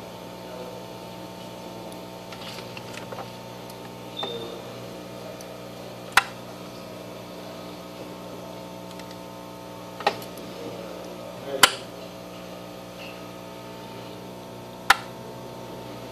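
Steady electrical hum at a soldering bench, with four sharp, isolated clicks of small metal tools such as tweezers and a soldering iron touching the work or the bench, two of them close together in the later part.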